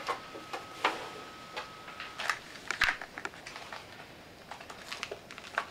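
Plastic seven-day pill organizer being handled, giving irregular light clicks and rattles, with a cluster of them about two and a half seconds in.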